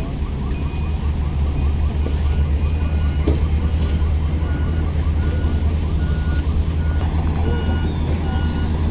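Heavy diesel mining machinery running steadily with a deep engine rumble, while short warning beeps repeat about once a second, a second beeper at a different pitch joining about six seconds in.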